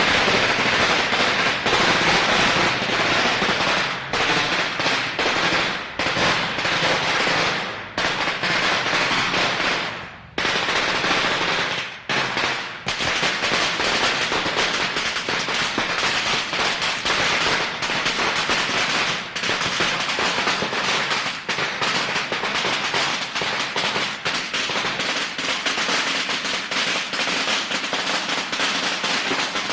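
A long string of firecrackers going off in a rapid, continuous crackle of sharp bangs, with a few brief lulls in the first half.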